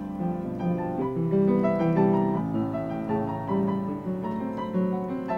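Piano music: a melody played over chords, with one note after another.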